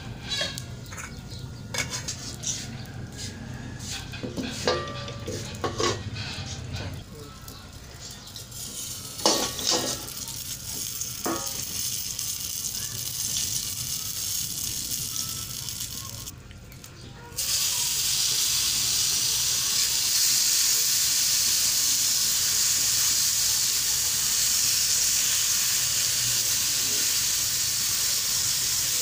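Halved brinjals frying in oil on a hot iron tawa, the oil sizzling steadily, with a few sharp clicks and knocks in the first half. About 17 s in the sizzling abruptly becomes much louder and stays steady.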